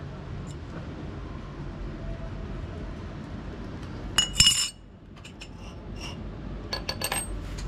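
Metal parts or tools clinking together with a short bright ring. There is a loud cluster of clinks about four seconds in and a few lighter ones near the end, over a low steady rumble.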